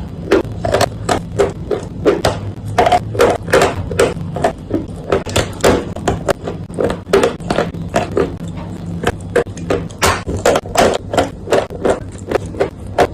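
Dry clay being crunched: a quick, steady run of crisp crunches, about three a second, over a faint low hum.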